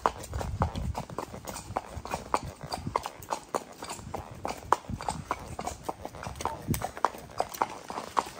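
Horses' hooves clip-clopping as a group of riders moves along: an irregular stream of sharp knocks, several a second.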